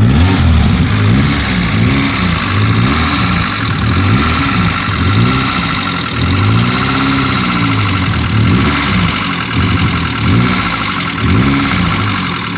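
Nissan 240SX engine running rough on its first start after sitting nine years, revved up and down again and again, about once a second, to keep it from stalling. A steady high hiss runs alongside.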